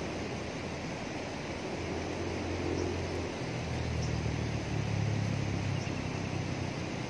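Steady rush of fast-flowing water through a sluice gate, with a low engine hum that swells from about a second and a half in, is loudest around five seconds and fades near the end.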